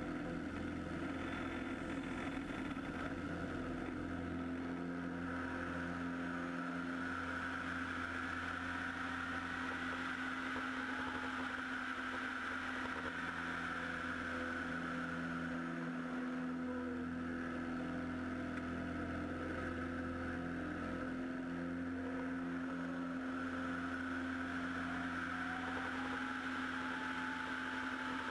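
American Champion Super Decathlon's four-cylinder Lycoming engine and propeller droning steadily in cruise flight, heard from outside the cabin with airflow noise. A faint tone rises slightly near the end.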